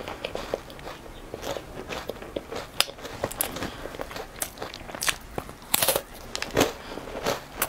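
Close-miked biting and chewing of a chocolate-coated wafer bar with chopped peanuts: light crackly chewing clicks, then a run of loud, crisp crunches in the second half.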